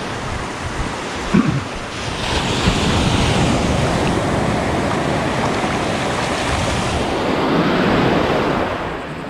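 Gentle surf breaking and washing up over the sand at the water's edge, growing louder about two seconds in as a wave runs up the beach.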